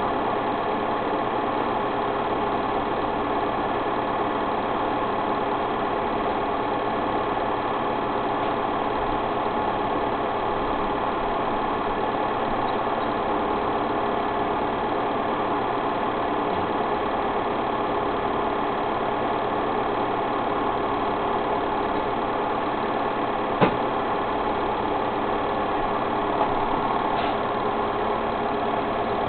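A small machine running steadily, an even mechanical hum with several steady tones, with a single sharp click a little past two-thirds of the way in.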